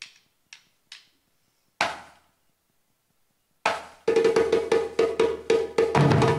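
Live percussion: a few light knocks, then a single loud hit about two seconds in. After a pause, a fast, steady drum rhythm starts near the end, with a held tone beneath it.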